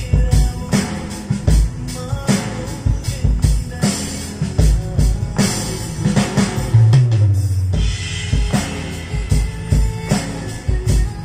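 Sampled drum kit, with kick, snare and rimshot hits, played in rhythm from the keys of an Akai MPK mini MIDI keyboard, over music with a bass line and melody.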